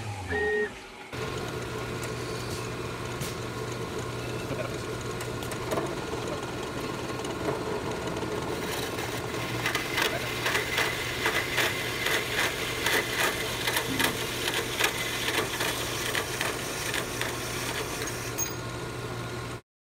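Metal-cutting bandsaw running with a steady motor hum as its blade cuts through aluminum block. From about halfway through, a fast rattle of ticks joins in as the blade goes deeper into the cut. It stops suddenly just before the end.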